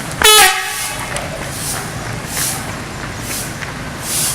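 Multi-tone 'telolet' horn of a PO Efisiensi bus giving a short blast of a few stepped notes just after the start. The bus then runs with a low rumble and brief hissing swells about once a second.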